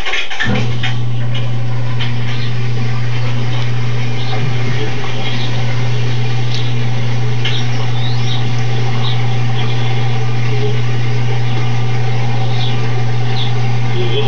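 A steady low hum that comes on about half a second in and holds unchanged, with faint short high chirps scattered over it.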